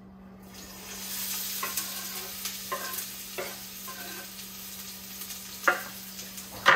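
Chopped onion sizzling as it hits hot olive oil in a rectangular Copper Chef pot, the hiss starting about half a second in and holding steady. Short scrapes and knocks come from the wooden cutting board as the onion is pushed off it, the two sharpest near the end.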